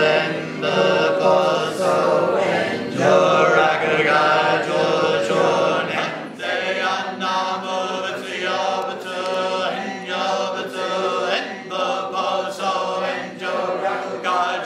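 A man chanting a mantra in a sustained, sung voice, the phrases repeating. About six seconds in, the chant becomes somewhat quieter and thinner.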